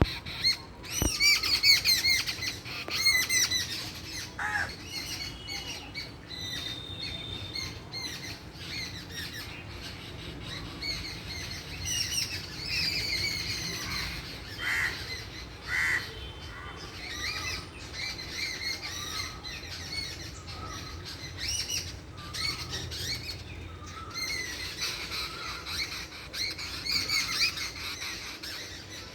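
A group of small birds chirping and squawking, with many short, high calls overlapping throughout.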